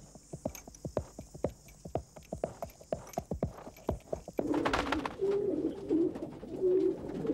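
A pony's hooves clip-clopping in quick, even beats at a trot. About four and a half seconds in, these give way to a sudden rustling flurry and then domestic pigeons cooing, several low, wavering coos in a row.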